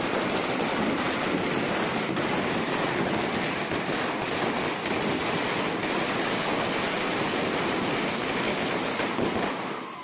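Firecracker string (ladi) going off as a dense, continuous crackle of tiny bangs, stopping abruptly just before the end.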